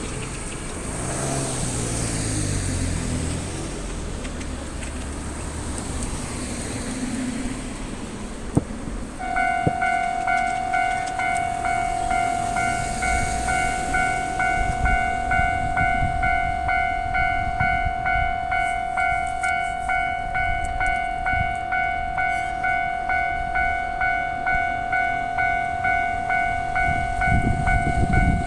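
Japanese railway level-crossing alarm of the older standard type. About a third of the way in it starts ringing a steady electronic tone, about two strikes a second, warning of an approaching train. Before it starts, vehicles pass on the road, and a low rumble builds near the end.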